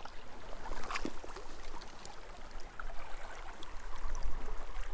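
Shallow creek water running over gravel, with a few faint knocks and splashes as a small trout is brought into a landing net.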